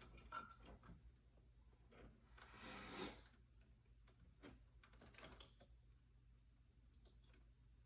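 Faint clicks and light handling noise as parts of a car door speaker are fitted by hand, with one brief rustling scrape about two and a half seconds in, over a low steady hum.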